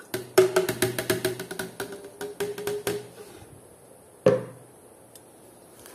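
Cooking oil poured from a plastic measuring jug into a blender jar of eggs and water: a quick run of glugs and splashes for about three seconds. It stops, and a single knock follows about four seconds in.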